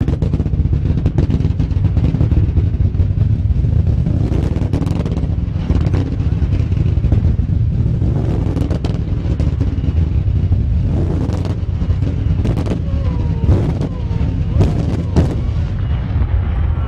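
Rapid barrage of fireworks shells fired from racks of mortar tubes: a loud, continuous rumble packed with many sharp bangs.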